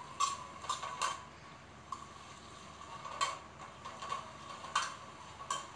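Metal ladle scraping and knocking against an aluminium pot while stirring sliced onions frying in oil: short irregular scrapes, about eight of them.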